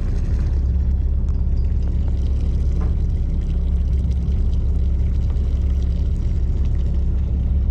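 Fishing boat's engine running steadily: a low, even rumble.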